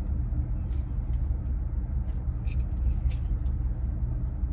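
A steady low rumble with a faint hum, and a few short, faint clicks scattered through it.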